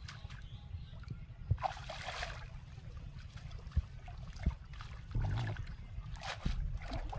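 Water sloshing and trickling as a wet cast net is drawn in and lifted out of shallow water, with short splashes about two seconds in and again near the end.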